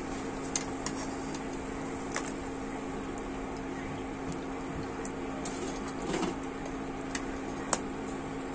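Hot oil sizzling steadily in a kadhai as fried urad dal vadas are lifted out, with a few sharp clinks of the metal spatula and slotted spoon against the pan, over a steady low hum.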